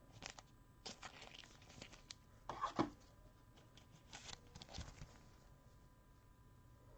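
Trading-card pack wrapper and cards being handled: irregular short rustling and crinkling, like packaging being torn or pulled, loudest a little under three seconds in and stopping about five seconds in.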